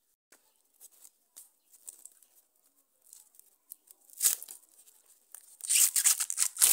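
Green husks being torn back and stripped from a fresh maize cob by hand: scattered light rustles, one sharp tear about four seconds in, then a dense crackling rip near the end.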